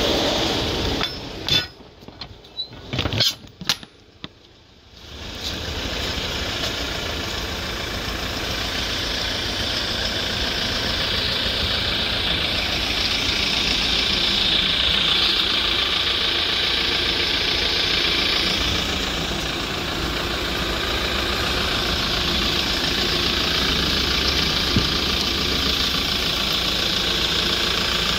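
Hyundai Porter II truck's diesel engine idling steadily. A few seconds in, the sound briefly drops away, with a few sharp clicks, before the steady idle returns.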